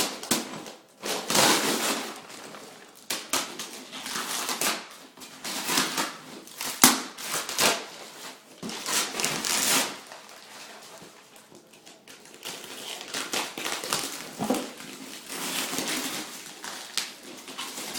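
Wrapping paper and packing being torn open and crumpled by hand: irregular bursts of rustling and ripping with sharp crackles, the loudest about seven seconds in, and a quieter spell in the middle.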